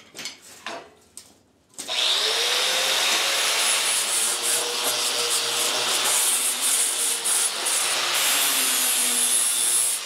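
A few light knocks, then about two seconds in an angle grinder spins up with a rising whine. It runs steadily, its abrasive disc grinding across a sheet-steel door panel to clean it up.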